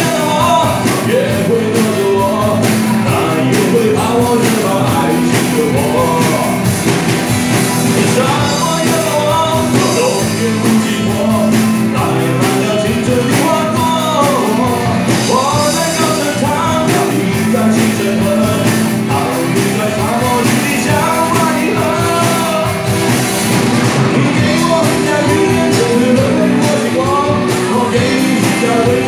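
Rock song performed live: male vocals singing a melody over a full rock band accompaniment, steady and loud.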